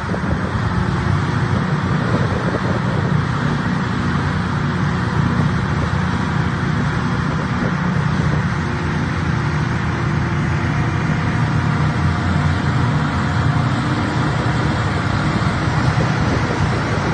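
Several wheel loaders with Larue D97 single-stage snow blowers running together at work, a loud, steady, dense diesel-and-blower drone mixed with the rush of snow being thrown.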